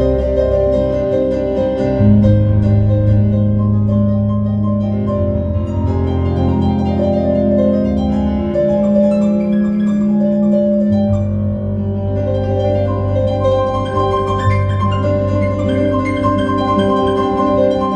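Solo piano improvisation: long held bass notes that change every few seconds under chords and ringing upper notes.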